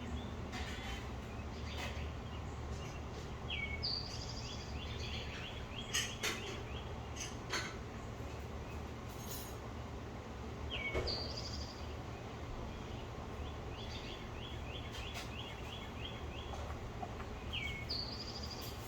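A songbird singing the same short song three times, about seven seconds apart: a quick high note, then a rapid run of about ten chirps. Under it runs a steady low rumble, with a few short sharp clicks.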